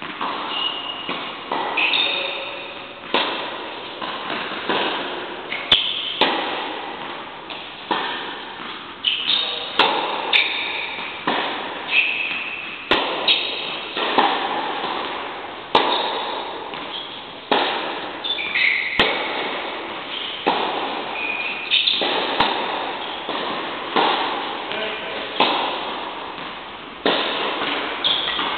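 Tennis balls struck by racquets and bouncing on an indoor court during a rally, a sharp pop about once a second, echoing through a large hall. Short high squeaks come now and then between the hits.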